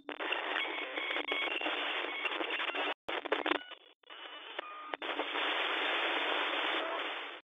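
Radio-tuning static sound effect: a hiss thinned as if heard through a small speaker, with short beeping tones in it. It breaks off briefly about three, four and five seconds in.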